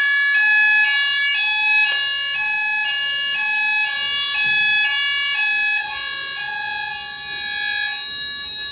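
Apollo fire alarm sounders going off during a test: a loud two-tone alternating alarm, switching pitch about three times a second, over a steady high continuous tone. About eight seconds in the alternating tones stop while the steady tone carries on.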